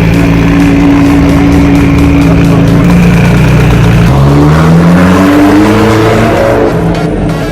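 A car engine running at steady revs, then accelerating from about four seconds in, its pitch climbing for about two and a half seconds.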